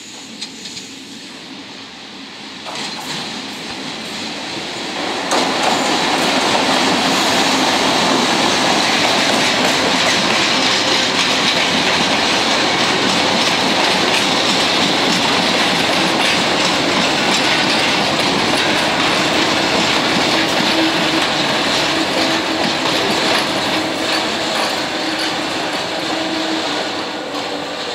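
EF65 electric locomotive approaching and passing, followed by flat wagons loaded with long steel rails rolling by: wheel-on-rail noise with frequent clicking over the rail joints. It grows louder over the first five seconds, holds steady, and eases slightly near the end.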